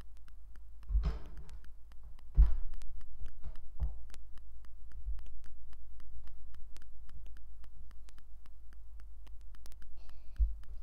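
Lego pieces being handled during a build: a steady run of small, sharp plastic clicks, with a few louder clatters about one, two and a half and four seconds in.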